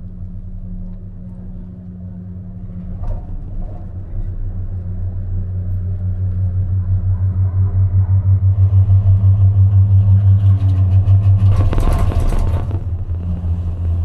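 Cable-car cabin humming and rumbling along the haul rope, the rumble growing and pulsing as it nears a support tower. Near the end comes a short clattering rattle as the cabin rolls over the tower's sheaves.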